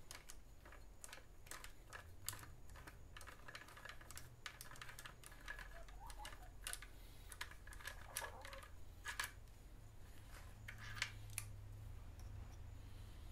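Hand ratchet with a long extension clicking as screws are turned, faint and irregular, with quick runs of clicks in the middle and again near the end.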